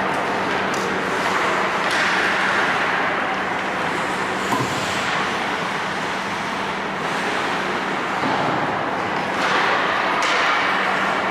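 Ice hockey rink ambience during play: a steady wash of noise over a constant low hum, with a few brief sharp scrapes or knocks.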